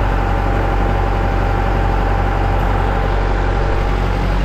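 Tractor engine running steadily, heard from inside the cab: a constant low hum with a thin, steady high whine over it that fades out near the end.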